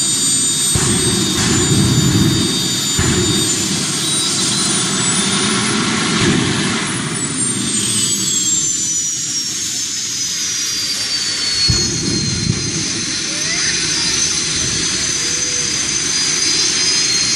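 A jet turbine engine fitted to a minivan running with a high whine over a steady rumble; the whine rises in pitch about four seconds in, then falls back and settles from about seven seconds.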